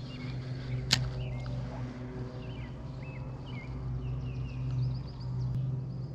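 Small birds chirping repeatedly over a steady low outdoor background, with a single sharp click about a second in.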